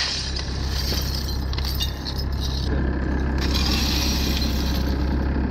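Shovels scraping through and scooping up heaps of shattered window glass, the shards clinking and crunching, over the steady low hum of a skid-steer loader's engine running.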